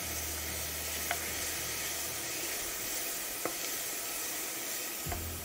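Diced onion, carrot and celery sizzling in olive oil in a stainless steel saucepan while being stirred with a spoon, with a few light clicks of the spoon against the pan.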